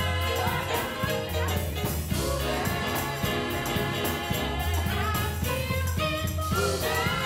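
Church music: singing voices over an instrumental accompaniment with a bass line.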